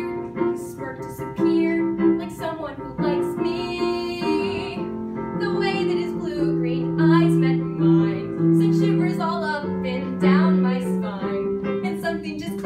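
A girl singing a musical-theatre song solo with piano accompaniment, holding some notes and sliding between others.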